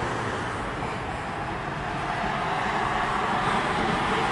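Road traffic: cars going by, a steady rushing noise of engines and tyres.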